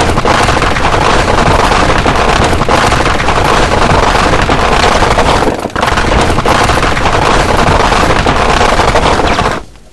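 Sustained automatic machine-gun fire from an M134D Gatling minigun and an M240 machine gun firing together, merging into one dense continuous stream of shots. There is a brief dip a little past halfway, and the fire cuts off suddenly near the end.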